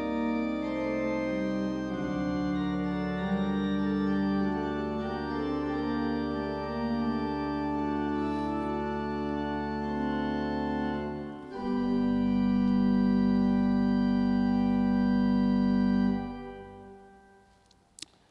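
Church organ playing slow sustained chords, then a long held final chord that fades out a couple of seconds before the end. A single sharp click follows near the end.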